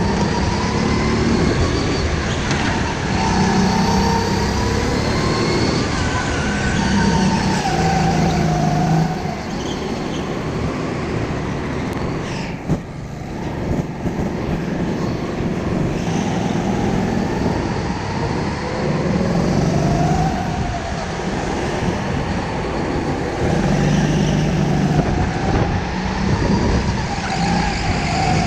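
Racing go-kart heard from on board, its motor running hard and rising and falling in pitch as it speeds up and slows through the corners, with a brief lull about halfway through.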